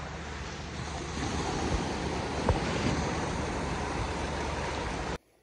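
Sea waves washing up on a sandy beach, a steady rushing surf with wind on the microphone. The sound cuts off suddenly near the end.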